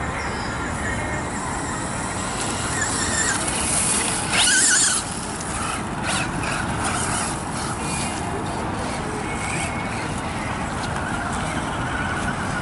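Traxxas Rustler electric RC truck driving over grass and dirt, its motor whining faintly over the noise of its tyres, with a loud rushing burst about four and a half seconds in that lasts under a second.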